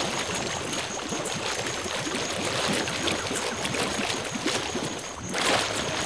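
River water rushing and splashing as a crowd of Nile crocodiles feed and jostle in the shallows, with a louder splash near the end.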